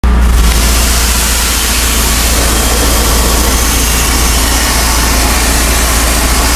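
Pressure washer's engine running steadily at a constant pitch under an even hiss, as the wand sprays water onto a fabric awning.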